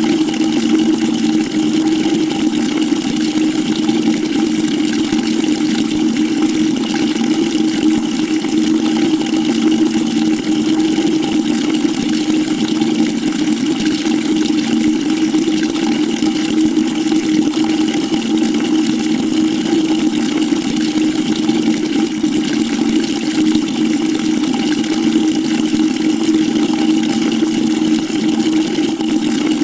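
Water pouring steadily into a bucket, a constant rush with a low, resonant tone that does not change.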